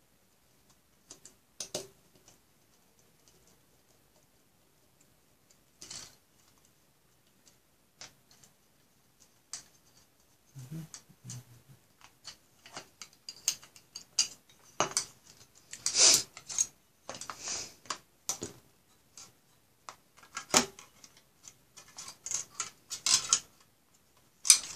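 Clicks and clatter of a plastic hard-drive caddy tray and a metal 2.5-to-3.5-inch drive adaptor being handled and fitted together. A few isolated clicks at first, then a busy run of clicking and rattling from about ten seconds in.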